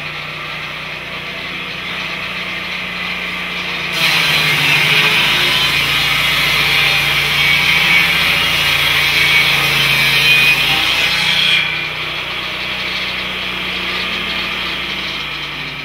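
Lucas Mill portable swing-blade sawmill running, its engine-driven circular blade cutting through a large beech log. The sawing gets suddenly louder about four seconds in and drops back near twelve seconds.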